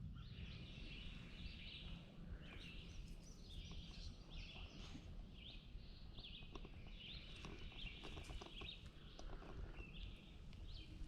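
Several songbirds chirping and trilling, with short high calls overlapping one another throughout, over a low rumble and a few faint clicks.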